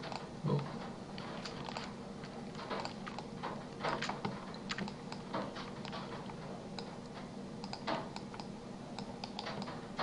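Computer keyboard and mouse clicks: irregular, scattered taps as values are typed and confirmed, over a low steady hum.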